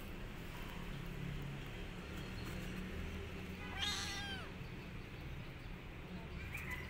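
Young kitten meowing once, a short cry that rises and then falls in pitch, about four seconds in.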